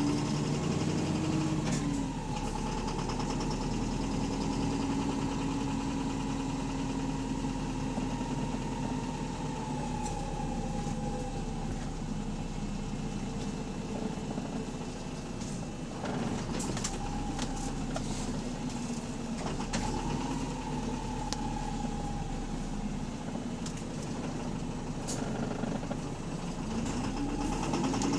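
Bus engine running with a loud rod knock, the sign of a worn connecting-rod bearing. A drivetrain whine rises and falls several times as the bus speeds up and slows down.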